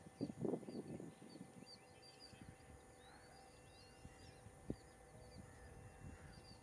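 Small birds chirping over and over in the background, with a faint steady hum underneath. A few low rustling knocks come in the first second, and there is one sharp click near the middle.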